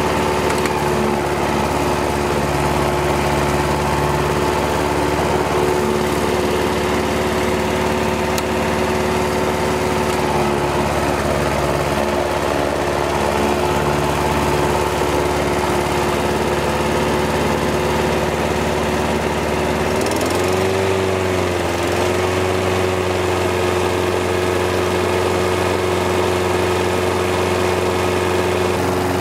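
Honda GXV120 single-cylinder four-stroke engine of a Honda HR 214 lawn mower running at a steady speed. About twenty seconds in, its note wavers briefly, then settles into a slightly different steady pitch.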